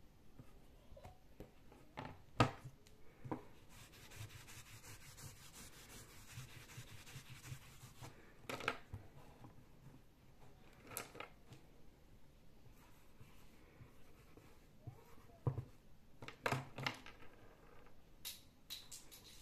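Handling a small whiteboard and writing on it with a marker: scattered sharp clicks and knocks, with a few seconds of scratchy rubbing near the start.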